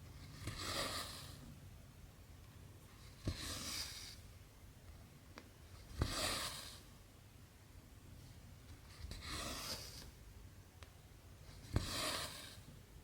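Cotton embroidery thread being drawn through cross-stitch fabric with a needle: five short rasping swishes, about one every three seconds, several of them starting with a sharp tick as the needle goes through.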